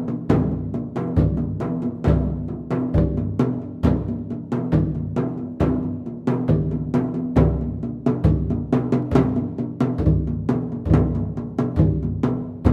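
Instrumental background music with a steady drum beat: a deep drum hit about once a second over sustained low notes.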